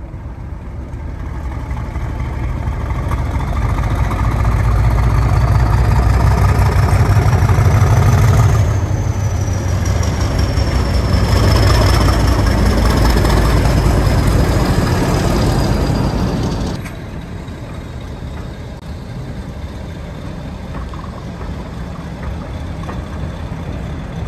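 Class 50 diesel locomotive's English Electric 16-cylinder turbocharged engine working hard as it pulls away with a train, getting louder as it approaches. A high whistle rises as it comes close and falls away as it passes. About seventeen seconds in the sound drops suddenly, leaving a quieter rumble as the coaches roll by.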